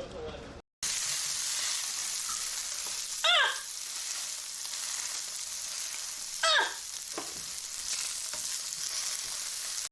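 Food frying in a pan, a steady sizzle that begins just after a brief cut at the start. Two short, falling squeaks sound over it, one a third of the way in and one about two-thirds in.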